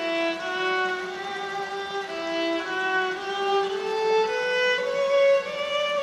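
Solo violin playing a melody of bowed, held notes that change about every half second to a second, in a concrete culvert.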